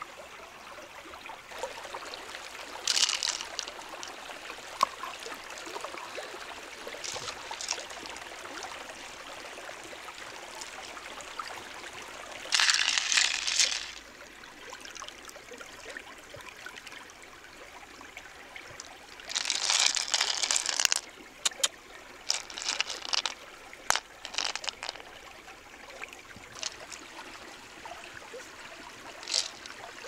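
A shallow stream trickling steadily over rocks, broken several times by brief bursts of rattling and clicking from handling a mussel shell full of loose pearls.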